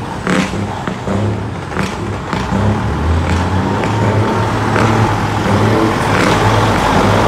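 Heavy trucks driving slowly past close by, engines running and tyres on the road. The sound gets louder near the end as a yellow multi-axle dump truck draws alongside.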